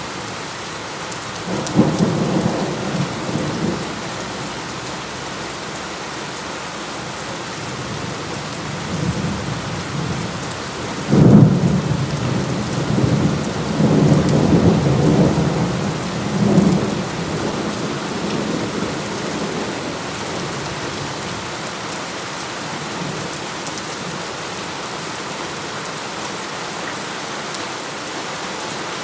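Steady heavy rain with thunder: a short roll of thunder about two seconds in, then a louder clap that starts suddenly about eleven seconds in and rumbles on for several seconds before fading back under the rain.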